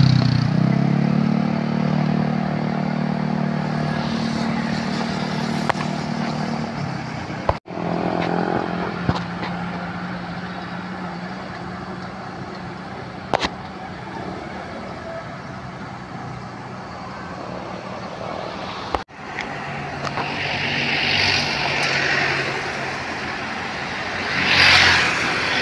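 Motor vehicle engine running steadily with street traffic. The sound drops out briefly twice, and a louder passing-traffic swell comes near the end.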